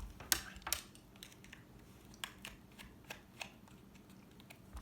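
Scattered light clicks and taps of hands handling a Gemmy animated Hermey figure, with two sharper clicks in the first second.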